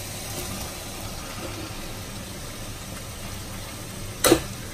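Pan of onion-tomato masala sizzling steadily as sliced chicken sausages are slid in from a plate, with one sharp knock near the end as the plate taps the pan.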